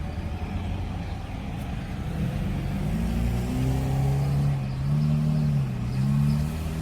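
A motor vehicle on a nearby road, a steady low rumble joined about two seconds in by its engine note, which wavers up and down as it accelerates.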